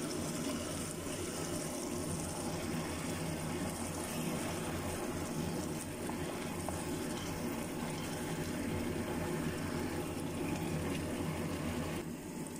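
Sardines, mushrooms and black beans simmering in their sauce in a pan: a steady bubbling hiss.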